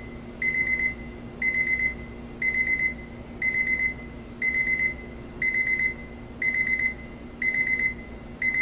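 Equity 30037 LED alarm clock's electronic alarm beeping: bursts of about four quick, high-pitched beeps, one burst roughly every second, repeating steadily.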